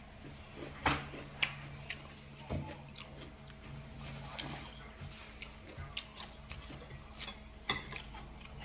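A person chewing food close to the microphone while eating spaghetti, with scattered sharp clicks. A paper napkin rustles midway, and a fork and spoon clink against a ceramic plate near the end.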